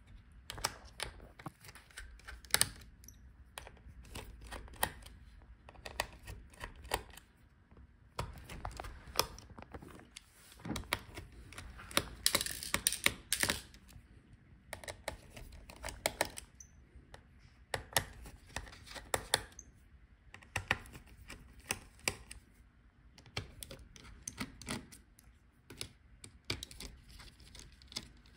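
Small screwdriver clicking and scraping in the screw heads of a laptop's heatsink and fan as the screws are undone, in irregular small metallic clicks and taps. A louder stretch of scraping and clicks comes about twelve seconds in and lasts a couple of seconds.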